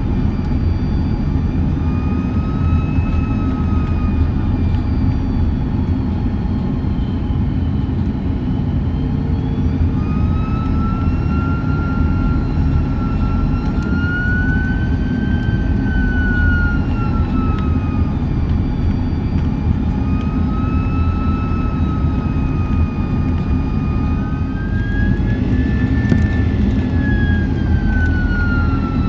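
Airbus A330 cabin noise in flight: a steady low engine and airflow rumble, with a jet engine whine that slowly rises and falls in pitch several times as the thrust is adjusted.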